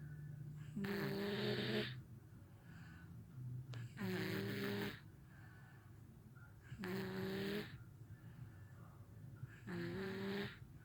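A sleeping toddler snoring: four loud, pitched snores about three seconds apart, with softer breaths between them.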